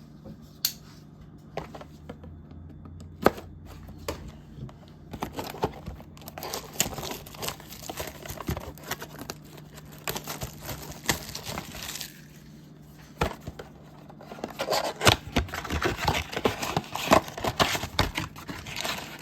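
Plastic shrink-wrap on a trading-card blaster box being torn and crumpled, starting as a few sharp crackles, then dense crinkling, a short pause, and louder crinkling near the end.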